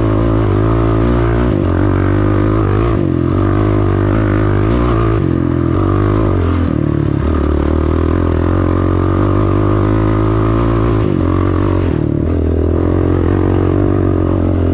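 Honda ATV engine running under way on a dirt trail, its pitch stepping up and down several times.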